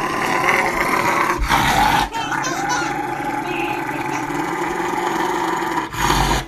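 A Rottweiler growling steadily as its nails are clipped, with a brief break about two seconds in and again near the end.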